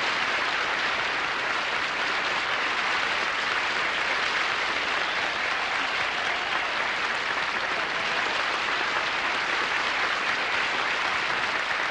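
Large theatre audience applauding, steady and unbroken.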